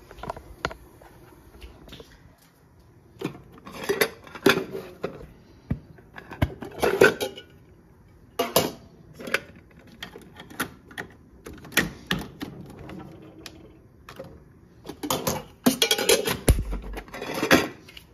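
Kitchen handling noises: irregular clicks, clinks and clattering of metal lids, containers and a capsule coffee machine being handled, in about a dozen separate bursts, busiest in the last few seconds.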